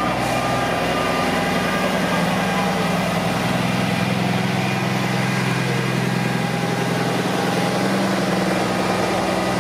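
Diesel engines of heavy trucks running steadily at low speed as they roll past one after another, a constant low engine hum.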